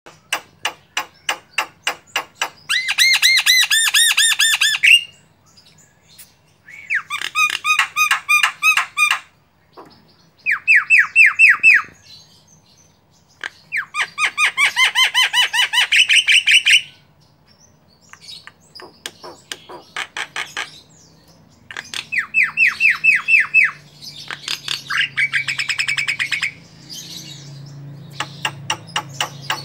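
Javan myna singing a varied song: a run of phrases, each a fast train of repeated, trilled notes lasting one to three seconds, separated by short pauses.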